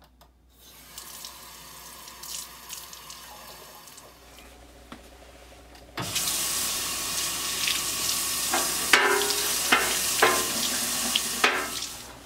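Kitchen faucet running into a sink while a yellow perch is rinsed under it: a gentle flow at first, then turned up sharply about halfway through to a loud, splashing stream with a few knocks, and shut off just before the end.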